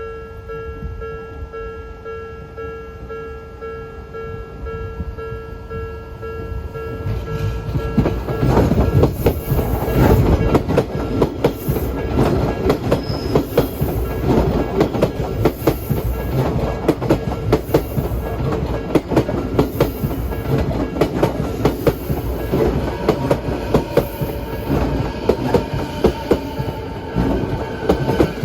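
Level-crossing warning bell ringing in a steady repeating tone. About eight seconds in, an Odakyu Line electric train starts passing through the crossing, its wheels clacking over the rail joints loudly until the end.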